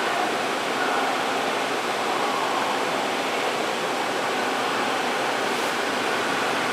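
CNC lathe with a hydraulic steady rest running: a steady, even hiss of machine noise with a faint hum of tones in it.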